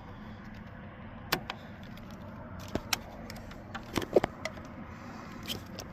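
Scattered short clicks and knocks, about half a dozen, from hands handling the headlight switch and its plug-in wiring connector, over a faint steady hum.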